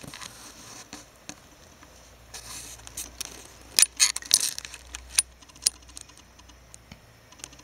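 Pet rats moving about on a duvet: soft rustling of the bedding with scattered sharp little clicks and taps, a cluster of louder ones about four seconds in.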